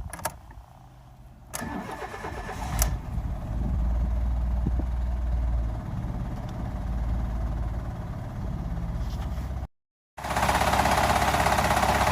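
2001 Fiat Doblo's 1.2 8-valve four-cylinder petrol engine cranked on the starter and catching from cold, then running at a steady fast idle. After a cut it is heard louder and closer, with a fast, even clatter: the strange noise from the engine.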